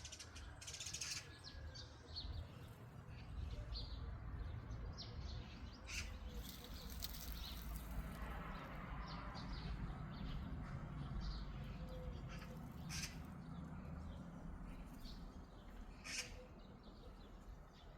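Wild birds chirping and singing, many short calls scattered throughout, over a steady low rumble.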